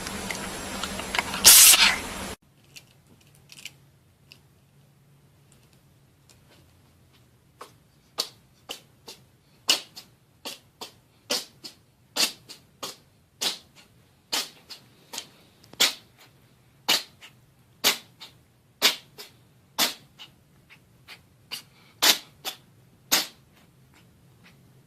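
A cat sneezing: one sharp sneeze about a second and a half in, then, after a pause, a long fit of short sharp sneezes, about one to two a second.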